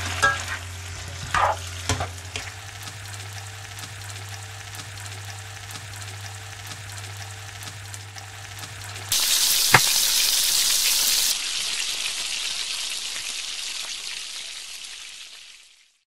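Food frying in a pan on a stove, with a few spatula scrapes and taps in the first two seconds. About nine seconds in a loud burst of sizzling starts, then dies away gradually to nothing.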